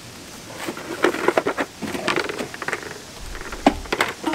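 Dry leaves and grit crackling under footsteps and the tyres of a scooter being pushed by hand, in a dense run of crackles, with a few sharp clicks near the end.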